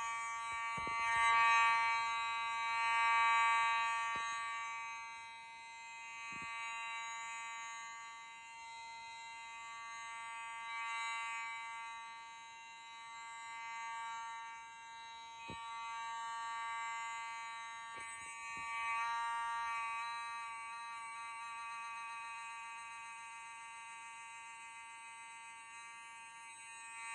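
Fire alarm sounding one continuous buzzing tone, rich in overtones and unbroken rather than pulsed. It starts suddenly and swells and fades slowly in loudness as it goes on.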